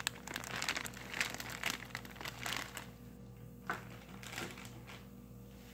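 Plastic baggie crinkling and rustling as it is handled, thinning out after about three seconds into a couple of single clicks.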